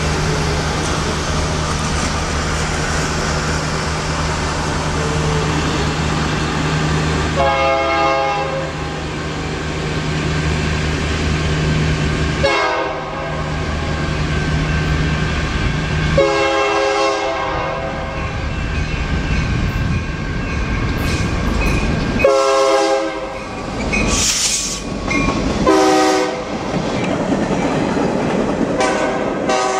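Freight train's diesel locomotive passing with a steady low engine drone. Its multi-chime air horn sounds six blasts, the one about 16 seconds in held longest, and then come wheel and car noise as the train goes by.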